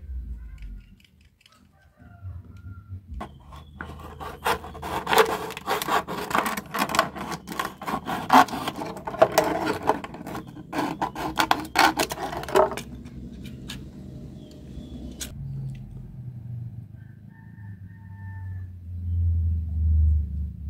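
Utility knife blade sawing through a thin plastic drink bottle: a dense run of rapid scraping, crackling strokes that starts about three seconds in and stops about thirteen seconds in.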